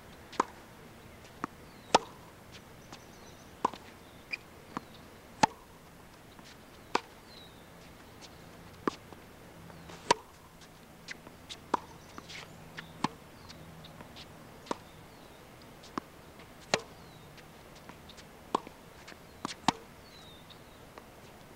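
Tennis balls being struck with rackets and bouncing on a hard court: sharp pops every second or two, some loud and close, others fainter.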